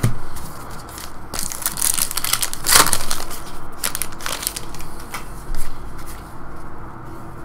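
Trading card pack wrapper being torn open and crinkled in the hands, a run of crackling about a second in that is loudest near the three-second mark, then a few smaller crackles as the cards are pulled out.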